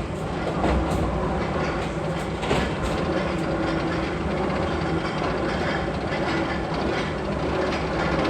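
Roller coaster train rumbling and clattering along its steel track, with a few sharp clacks in the first three seconds.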